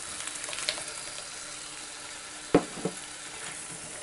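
Onion and ginger-garlic paste sizzling steadily in a frying pan as tomato puree is poured in and stirred. A sharp knock, then a lighter one, come a little past the middle.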